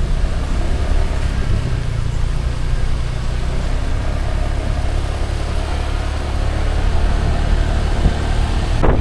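Steady low rumble of a vehicle engine and road noise while driving. A sudden louder rush, like wind on the microphone, comes in near the end.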